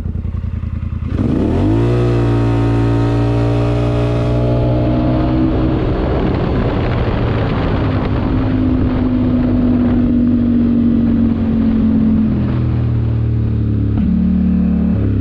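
Polaris Sportsman XP 1000 S ATV's twin-cylinder engine accelerating hard in low range: about a second in the revs jump sharply, then hold nearly level as the CVT takes up, and near the end the revs fall back in two steps as the throttle comes off. The rpm it reaches in low range is short of what it should be after tuning, which the rider calls not good.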